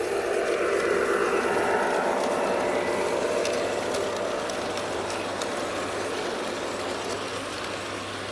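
Large-scale garden-railway model train passing close by: the model diesel locomotive's motors and wheels running along the track, loudest about a second in as it goes past, then the freight wagons rolling by with a few light clicks as the sound slowly fades.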